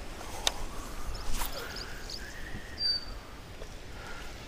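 A cast with a baitcasting rod and reel: a quick swish of the rod about a second and a half in, then the faint whir of the reel's spool paying out line for about a second. A light click comes before it, and a bird chirps briefly.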